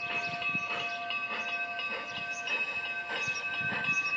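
G-scale garden-railway steam train running along the track: a regular beat about three times a second over a steady high whine.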